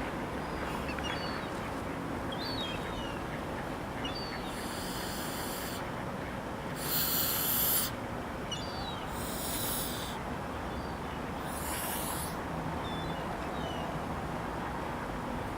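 Toulouse gander hissing four times, each hiss about a second long, the second the loudest: a warning to keep away from his mate. Faint short bird calls in the background.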